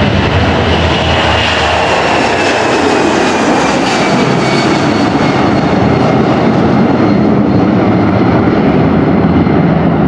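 Boeing C-17 Globemaster III's four turbofan engines at takeoff power as the jet lifts off and climbs away: a loud, steady jet roar with a whine that slowly falls in pitch.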